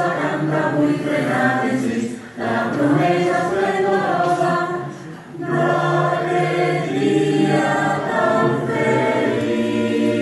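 Caramelles choir of mixed voices singing an Easter caramelles song in four parts, the women carrying the melody, played back from a video recording through the room's speakers. The singing comes in phrases with short breaks about two and five seconds in.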